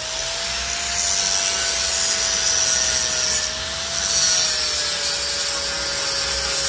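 Angle grinder running steadily and grinding down a weld on a steel grille: a steady motor whine whose pitch sags slightly now and then under pressure, over a continuous high grinding hiss.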